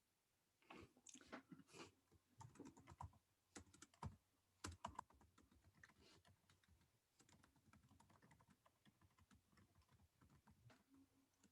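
Very faint, irregular small clicks and taps, clustered in the first five seconds, giving way to a softer scratchy rustle, like hands handling small hard parts.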